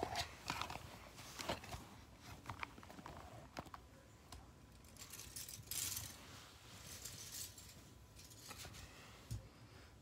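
Light clicks and rustling as small plastic Lego minifigures are handled and set down on a bedsheet, with a few sharper clicks in the first two seconds and a short rustle in the middle.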